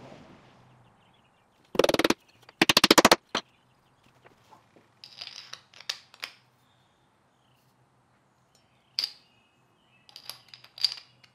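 Two loud bursts of very rapid clicking, then scattered small sharp metal clicks as a multi-function screwdriver's steel reversible shaft and bits are fitted into a turned wooden handle with a copper ferrule and handled.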